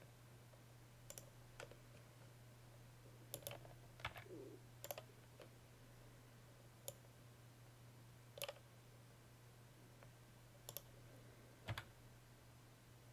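Faint, scattered clicks of a computer mouse and keyboard, about ten of them at irregular intervals, over a low steady hum.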